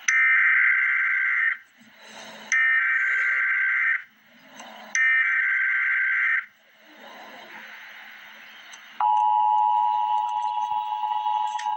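Emergency Alert System SAME header: three bursts of rapid two-pitch data tones, about a second and a half each, with short gaps between them. About nine seconds in, the steady two-tone EAS attention signal begins, opening the alert.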